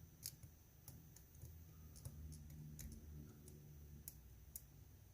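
Faint, scattered clicks, about half a dozen, from a lock pick probing and lifting the pin stack of a GEGE euro cylinder held under tension.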